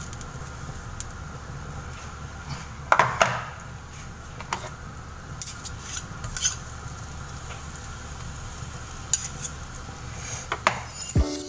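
Butter melting with a low sizzle in a hot pan, a cooking utensil clinking and scraping against the pan a few times.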